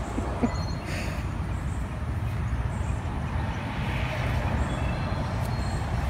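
Steady low outdoor rumble, like wind on the microphone or distant traffic, with no clear voice or animal sound.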